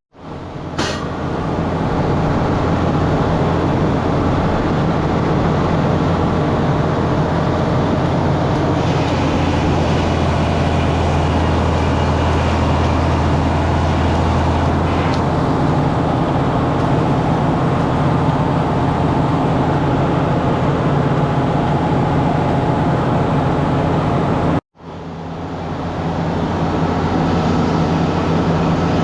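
Sawmill running steadily, an engine-driven machine hum that cuts out abruptly twice and fades back in.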